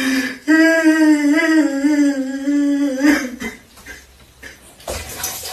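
A voice singing or humming one long, slightly wavering note for nearly three seconds, then dying away.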